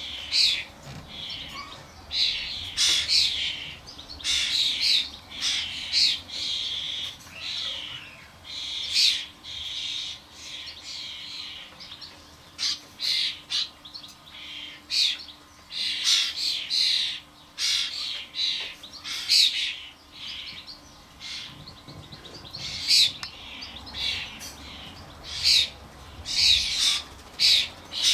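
A group of common starlings, adults and fledglings, giving harsh, rasping calls in quick, irregular succession, several a second at the busiest moments.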